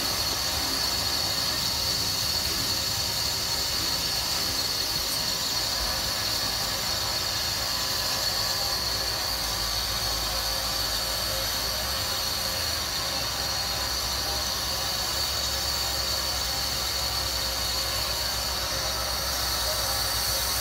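Idling Frisco 1630, a 2-10-0 Decapod steam locomotive, standing still: a continuous hiss of steam with a steady high-pitched whine over it.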